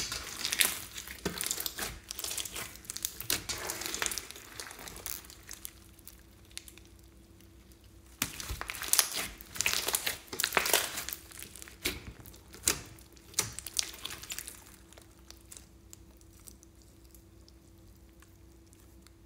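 Clear slime packed with foam beads being squeezed and pressed by hand, crackling and popping in irregular bursts. The crackling pauses briefly before the middle, then goes quiet for the last few seconds as the slime is stretched.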